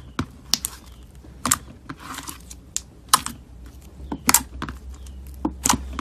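Slime being worked by hand: irregular sharp clicks and pops, some with a short wet smear after them.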